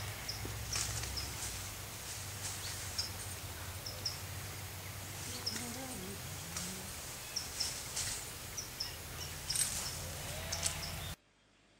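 Yellow-chevroned parakeets giving short, shrill chirps, irregular and often in quick pairs or clusters, over a steady low hum and a row of faint high peeps. The sound drops away abruptly near the end.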